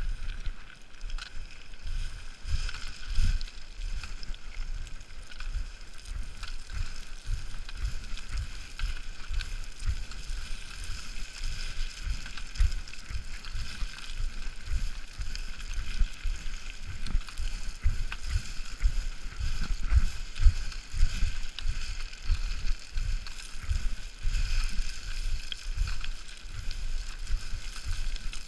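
Boots descending loose scree: a steady crunching and sliding of small stones underfoot, with quick, irregular low thuds of the footfalls.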